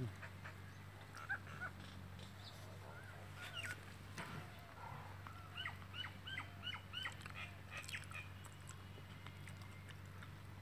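A bird calling: scattered short chirps, then a quick run of about eight short arched notes, about three a second, in the middle. A low steady hum runs underneath.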